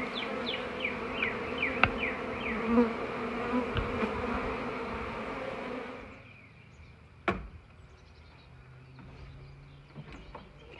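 Honeybees buzzing thickly as they fly around the entrance of a trap-out bait box. About six seconds in the buzz fades to a quiet background, broken by a single sharp knock a second later.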